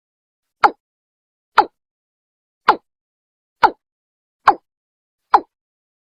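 Watercock (Gallicrex cinerea) calling: a steady series of short notes that each fall quickly in pitch, about one a second, six in all, separated by dead silence. This is a recorded lure call used to draw the birds in.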